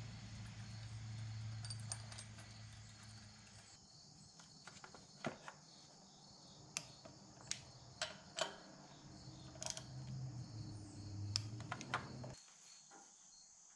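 Scattered faint clinks and clicks of a hand wrench and steel bolts while a PTO pulley hub is bolted to an engine crankshaft. They come over a low hum, which stops near the end, and a steady high-pitched hiss.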